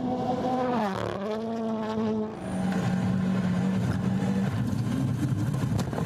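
Rally car's turbocharged four-cylinder engine at high revs, with a brief dip and recovery in pitch about a second in, then a steady note. Past the middle the clear note gives way to a rough rumble with scattered sharp clicks.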